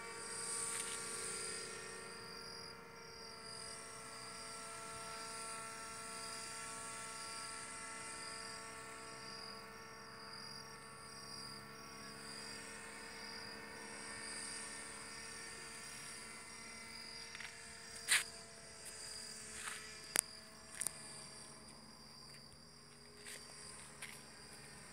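Faint, steady hum of a radio-controlled model paramotor's small motor and propeller flying overhead, climbing under power and fading a little toward the end. Insects chirp steadily throughout, and a few sharp clicks come in the last third.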